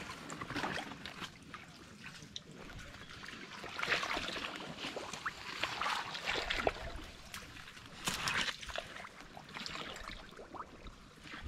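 Shallow water sloshing and splashing in irregular bursts as a person wades through flooded mangrove mud and reaches into the water.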